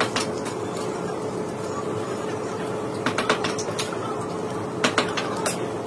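Machinery running with a steady hum over a noisy background, with scattered sharp metallic clicks and knocks, a cluster of them about three seconds in and a few more near the end.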